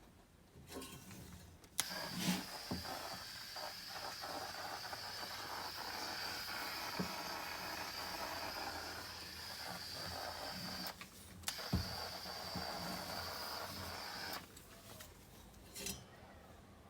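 Compressed air hissing steadily through an electrostatic powder coating gun as it sprays, in two long bursts with a short break between them. A few light knocks come through during the spraying.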